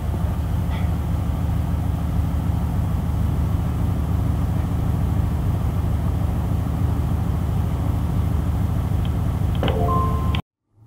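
Diesel regional train's engine running steadily, a loud low rumble heard inside the passenger cabin. Near the end come a few short clicks and a brief beep, then the sound cuts off abruptly.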